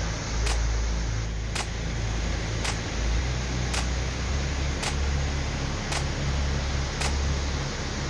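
Steady roar of a large waterfall with a deep low rumble underneath, and a sharp click about once a second.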